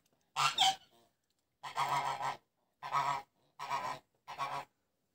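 Domestic geese honking: about five loud honks in a row, roughly one a second, the second one the longest.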